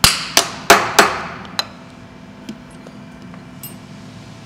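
Four quick mallet blows in about a second, each with a short metallic ring, then a lighter tap: a radial bearing being tapped down to seat on the spindle's bearing stack.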